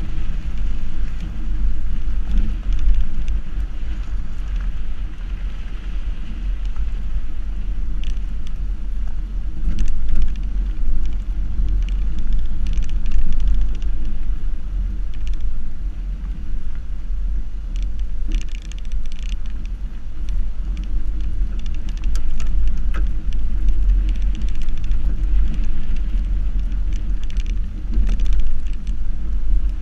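Subaru XV driving over a dirt and gravel track, heard from a camera on the outside of the car. A heavy, steady low rumble from the tyres, wind and drivetrain, with scattered sharp crackles of gravel under the tyres.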